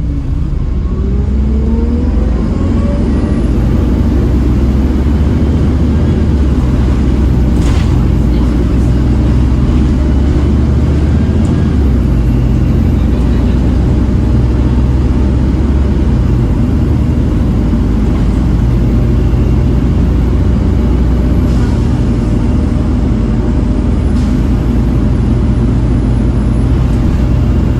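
Volvo B7TL double-decker bus's six-cylinder diesel running under way, with a whine that rises in pitch over the first few seconds as it pulls away. A single sharp knock comes about eight seconds in.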